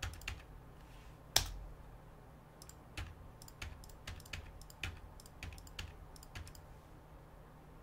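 Typing on a computer keyboard: irregular keystrokes, one louder click about a second and a half in, then a quick run of keys that stops a little over a second before the end.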